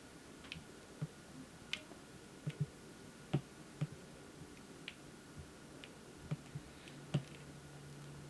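Scattered light clicks and soft taps, about a dozen at irregular intervals, as a kitten plays with a dangling cord: paws on a laminate floor and the cord's plug knocking about.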